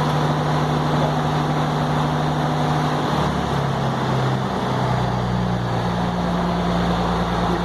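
An engine running steadily in the background, a low hum whose pitch shifts about three seconds in and again near five seconds.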